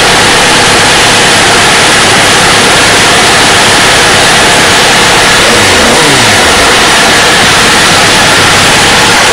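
2002 Suzuki GSX-R1000's inline-four engine at high revs under hard acceleration, largely buried under loud wind rushing over the microphone. The engine pitch drops briefly about six seconds in.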